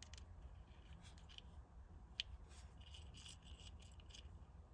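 Near silence with faint handling noise: light rubbing and small clicks from fingers and a hex key working the RC car's metal brake plate, screws and shaft, with one sharper click about two seconds in.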